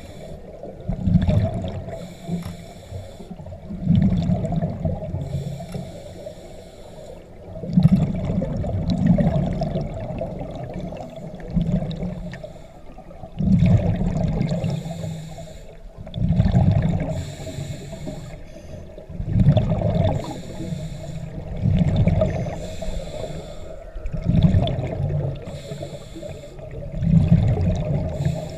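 Scuba diver breathing through a regulator underwater: a rumbling burst of exhaled bubbles every few seconds, in a slow, regular rhythm.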